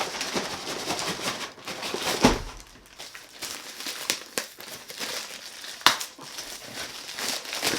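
Product packaging being handled, crinkling and rustling, with two sharp knocks about two seconds in and again about six seconds in.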